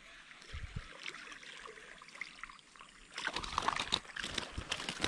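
Faint water sloshing and trickling with a low thump, then from about three seconds in footsteps and a dense crackling rustle of dry leaves and twigs in brush.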